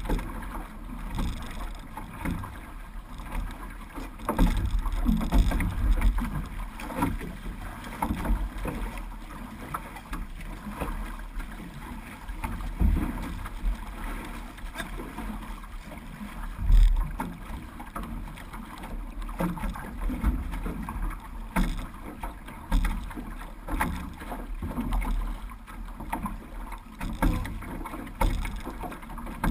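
Six-person outrigger canoe under paddle: repeated splashes of paddle blades entering and pulling through the water, with water rushing and slapping along the hull. Wind buffets the microphone.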